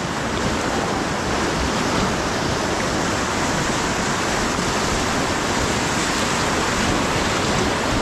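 White-water river rapids churning around an inflatable raft: a steady, even rush of water.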